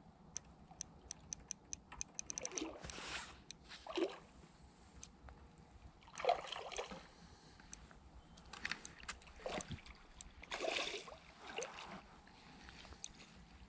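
Hooked carp splashing at the surface as it is played in close to the bank, the splashes coming in several separate bursts. In the first couple of seconds the fishing reel gives a run of quick, even ticks.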